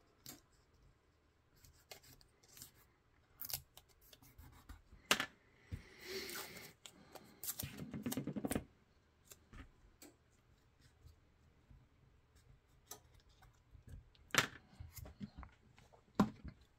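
Blue painter's tape being handled by hand: quiet rustling, pressing and tearing of tape, with scattered small clicks and taps. Two longer rustling stretches come about six and eight seconds in.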